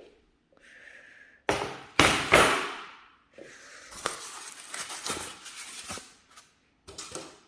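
Flat-pack desk parts and their packaging being handled: rustling and scraping with a few sharp knocks, the loudest two scrapes close together about two seconds in.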